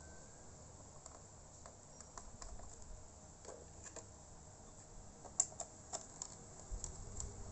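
Scattered light clicks and taps from a small Phillips screwdriver and screws working on a laptop's plastic case, with one sharper click about two-thirds of the way through.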